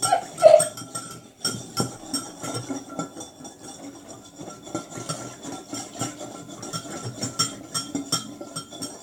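A spoon stirring borax into water in a bowl, clinking and tapping against the bowl irregularly throughout.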